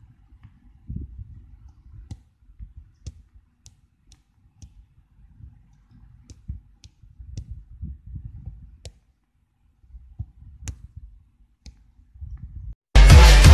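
Low, uneven rumbling noise with scattered sharp clicks at irregular intervals; loud music with a heavy beat cuts in suddenly near the end.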